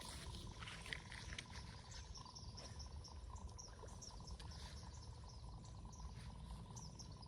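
Faint outdoor ambience: many short, high chirps from insects and birds over a thin steady hum and a low rumble.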